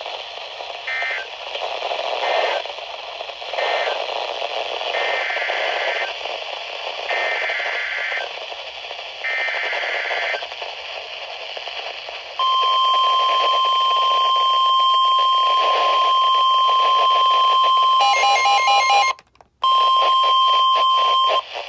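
Weather radio receiver picking up an alert through static: a dozen seconds of short repeated bursts of warbling data tones (the SAME alert header), then the steady 1050 Hz warning alarm tone for about nine seconds, cutting out briefly near the end. It announces a new severe thunderstorm warning.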